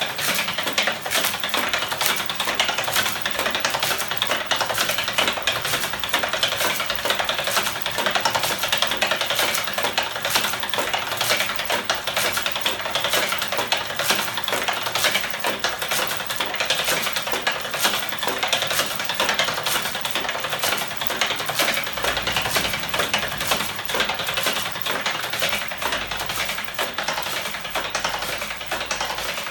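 Homemade electromagnetic ornithopter engine running, its crankshaft and arm mechanism making a rapid, even stream of mechanical clicks and clatter.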